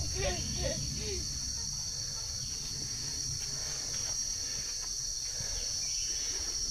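Insects shrilling in a steady high-pitched drone over a low rumble, with a brief bit of voice in the first second.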